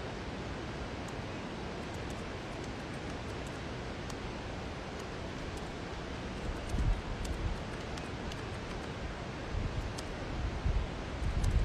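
Steady outdoor background hiss, with wind buffeting the microphone in low rumbles about seven seconds in and again near the end.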